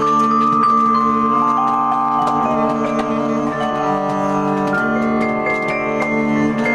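Yamaha vibraphone played with four yarn mallets in free improvisation: soft-attacked notes that ring on and overlap into sustained chords, with new notes struck every so often over the held ones.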